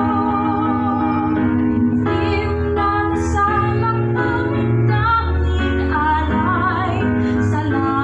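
Music: a woman singing a slow song with held, wavering notes over sustained instrumental accompaniment.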